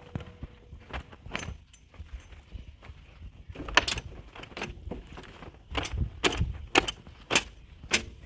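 Irregular sharp knocks and clanks, thickest in the second half, over a low engine rumble.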